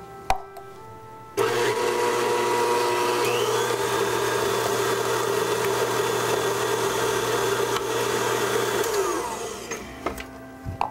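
Electric stand mixer beating molasses and corn syrup into creamed shortening and sugar for gingerbread dough. It starts suddenly about a second in, runs steadily, then winds down with a falling pitch near the end as it is switched off.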